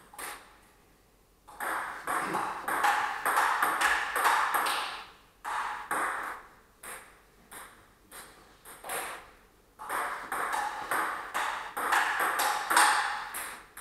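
Table tennis rallies: the celluloid-type ball clicking back and forth off the bats and table in quick, even strikes, with a short lull before the first rally and another stretch of hits about ten seconds in. A hiss swells under the hits during the faster rallies.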